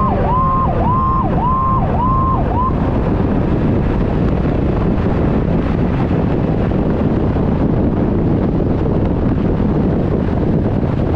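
Fire engine siren cycling in quick up-and-down sweeps about twice a second, with a lower tone falling in pitch beneath it, cutting off about two and a half seconds in. After that comes a steady rush of wind and road noise on the front-bumper microphone as the truck drives at highway speed.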